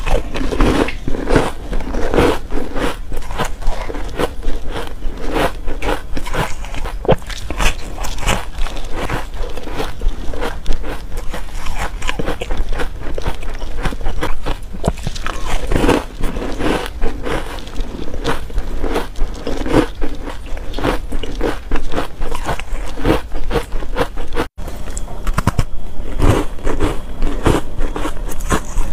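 Close-up biting and chewing of matcha-powder-coated ice cubes: a dense, continuous run of crisp cracks and crunches, with a brief break about 24 seconds in.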